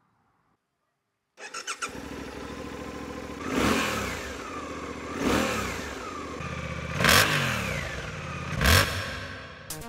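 Suzuki V-Strom 800DE's 775 cc parallel-twin engine with 270-degree crank starting up after a brief crank, then idling. Four quick throttle blips follow, each rising in pitch and falling back to idle.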